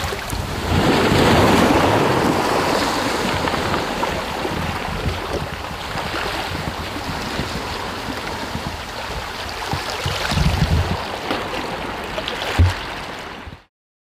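Small sea waves washing over a pebbly shore, with wind buffeting the microphone. A single low thump comes near the end, and the sound cuts off suddenly just before the end.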